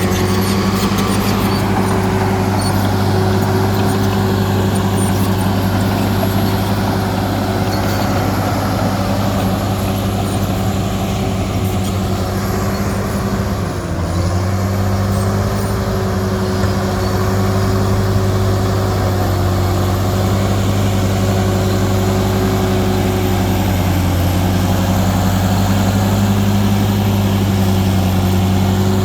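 Heavy diesel engine of an earthmoving machine (excavator or bulldozer) running steadily at working revs. Its pitch sags briefly about halfway through and again later, as it takes on load.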